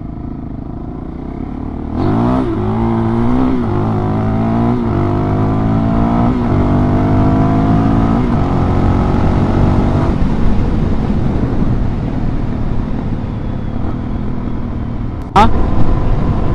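Suzuki DR-Z400 dual-sport motorcycle's single-cylinder engine idling, then pulling away about two seconds in and accelerating up through several gears, the pitch climbing and dropping back at each shift, before settling to a steady cruise. A sudden louder burst comes near the end.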